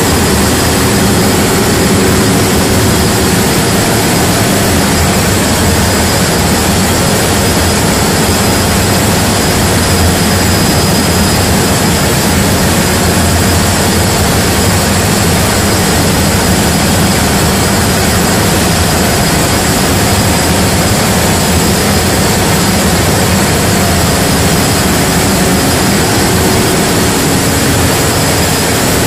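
Heavy engine running at a steady speed: a constant loud drone, with a low hum under an even hiss.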